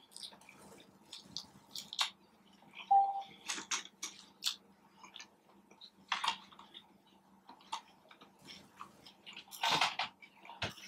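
Close-miked eating sounds: wet chewing and lip smacks in scattered short clicks as street tacos are eaten, with a louder cluster near the end.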